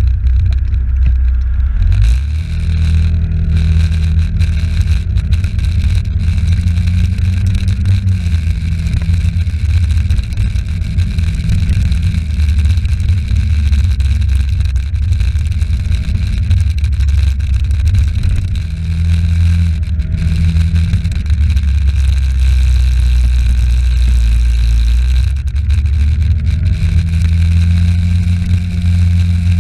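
Engine of the vehicle carrying the camera, running while it drives through streets. Its pitch rises and falls in several spells as it speeds up and slows, over a heavy, steady low rumble.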